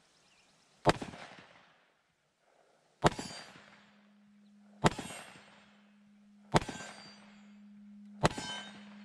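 Five shots from a Taurus 605 2-inch snub-nose .357 Magnum revolver fired double action with full-power factory 158 grain jacketed soft point loads, evenly spaced about 1.7 seconds apart, each a sharp crack with a short tail. A steady low hum comes in after the second shot and holds.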